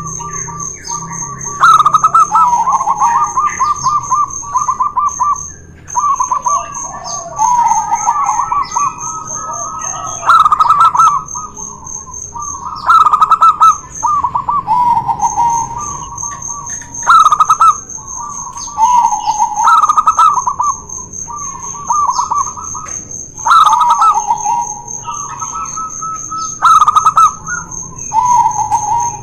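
Zebra doves (perkutut) cooing in a duel: repeated trilled phrases, each opening with a loud note, about every three seconds. A steady high-pitched whine runs underneath.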